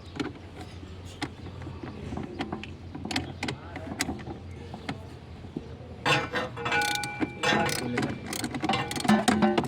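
Metal tools and parts clinking and knocking: light scattered clicks at first, then from about six seconds in a busy run of louder metallic clanks that ring on briefly.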